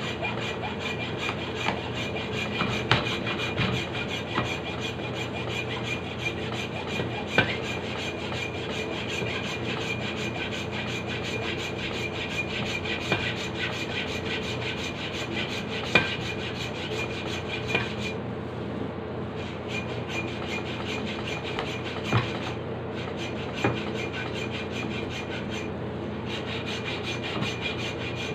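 Saw blade drawn back and forth by hand through a dense block of binaluto: a steady rasping stroke after stroke, with a few sharp clicks and short pauses in the second half.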